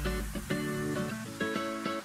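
Background music led by plucked guitar, a run of separate notes.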